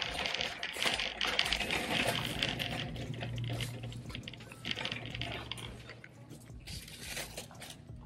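Rustling and scraping of a handheld phone's microphone against clothing while the holder walks, loudest in the first few seconds and then fading, over a steady low hum.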